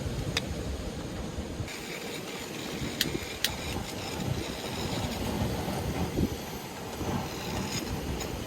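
Strong wind rumbling and buffeting against the microphone, rising and falling in level, with a few sharp clicks: one about half a second in and two close together around three seconds in.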